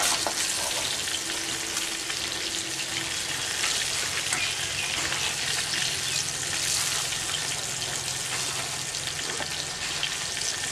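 Pieces of koi (climbing perch) sizzling steadily as they fry in hot oil in a pan, with light scrapes of a metal spatula turning them. The fish are lightly fried and nearly done.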